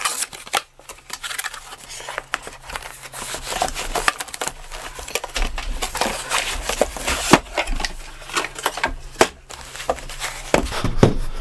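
Cardboard box and packaging being handled: a dense run of rustles, scrapes and small knocks as the flaps are folded back and a hard plastic carrying case is slid out and lifted.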